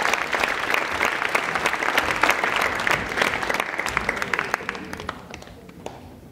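Theatre audience applauding, loud at first and then dying away over the last couple of seconds.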